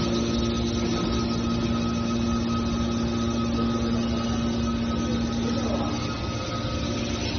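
Metal wire baler machine running with a steady mechanical hum and a faint high whine; the lower hum eases off near the end.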